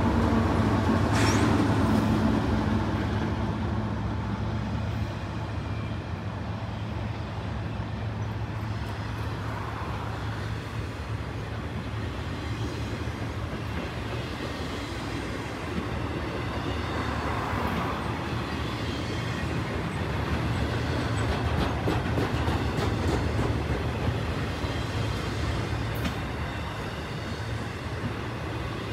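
Intermodal freight train rolling past at speed. The trailing GE C44-9W diesel locomotive's engine fades away in the first couple of seconds, leaving a steady rumble of container well cars' wheels on the rails with scattered clicks.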